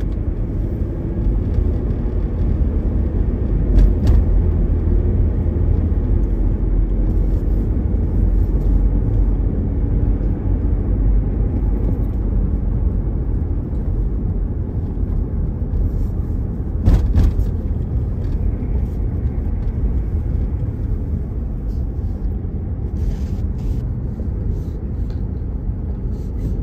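Road noise inside a moving car's cabin: a steady low rumble of tyres and engine, with two brief knocks a few seconds in and about two-thirds of the way through.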